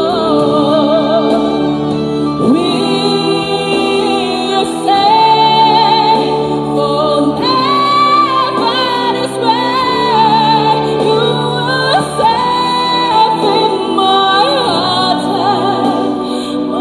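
A woman singing a song live over an instrumental backing, holding long notes with a slight vibrato.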